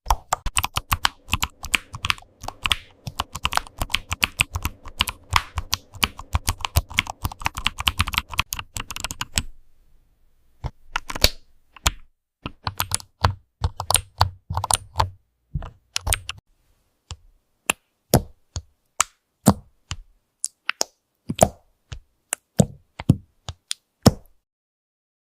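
Keyboard typing: keystrokes clicking in a fast, dense run for about nine seconds, then slowing to scattered single keystrokes with short pauses between them.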